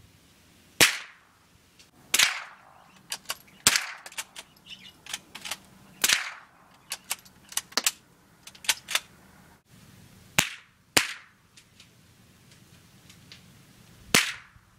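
.22 rimfire rifles firing: about seven sharp cracks at irregular intervals, each with a short fading echo. Lighter pops and clicks fall between them.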